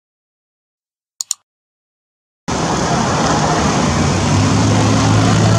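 A quick double click, the cursor click of a subscribe-button animation. About two and a half seconds in, a loud steady outdoor noise cuts in abruptly, with a low steady hum under it.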